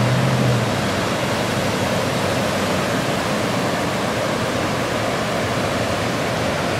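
Floodwater rushing steadily over a flooded street, an even roar of fast-moving water. A low hum underneath fades out about a second in.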